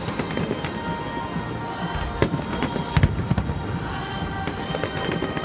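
Aerial fireworks bursting continuously over the river, with the loudest sharp bangs a little over two seconds in and again about three seconds in. Music plays steadily underneath.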